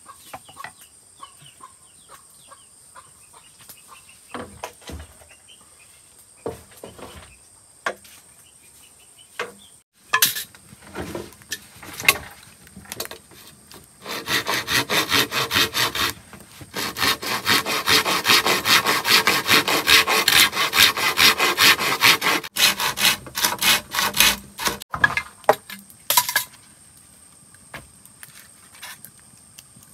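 Hand saw cutting through bamboo in a fast, steady run of back-and-forth strokes lasting about eight seconds through the middle. Scattered knocks and taps come before and after it.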